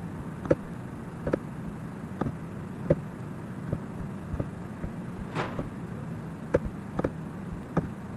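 Computer mouse clicking about ten times at an irregular pace, roughly one click every half second to second, over a steady low hum.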